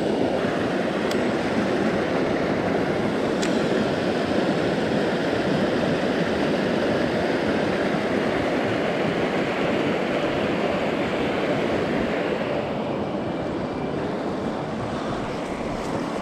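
River water rushing steadily over a low stone weir and its rapids, a continuous hiss of white water. It grows a little fainter in the last few seconds.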